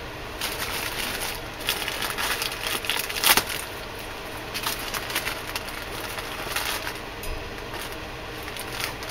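Plastic wrapping crinkling and rustling as a parcel is unwrapped by hand, with a sharper crackle about three seconds in.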